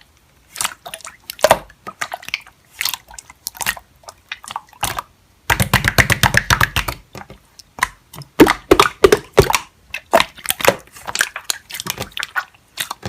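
Hands squishing and stretching slime, making a string of irregular sticky clicks and pops, with a dense run of rapid crackling about halfway through.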